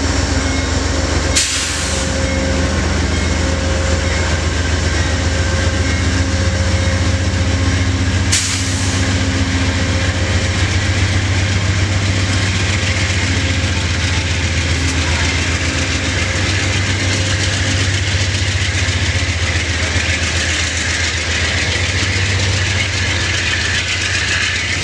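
Amtrak Pacific Surfliner train going by: the diesel locomotive's engine runs with a steady low hum and drone. About a second and a half in and again about eight seconds in there is a sharp knock. Then the rushing rattle of the double-deck passenger cars' wheels on the rails builds as the cars pass.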